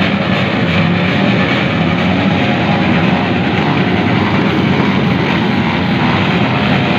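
Many small motorcycle engines running and revving at once, a loud steady mass of engine noise with no single bike standing out.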